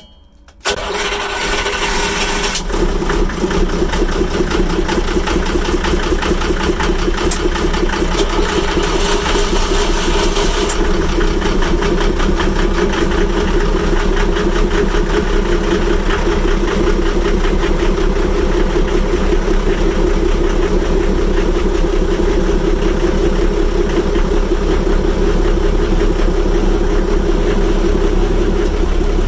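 Twin Volvo Penta marine diesel engines in an open engine bay: an engine is started about half a second in, catching at once, then the diesels idle steadily with an even clatter. A brief high-pitched whirr comes in around nine to eleven seconds in.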